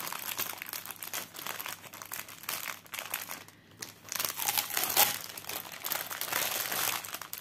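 Clear plastic packaging film crinkling and crackling as it is handled and crumpled, with a brief lull a little past halfway.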